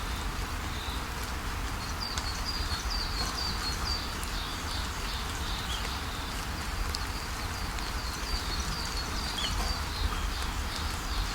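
Steady rushing of a waterfall with birds chirping over it in quick runs of short, high, repeated notes, about two seconds in and again near the end.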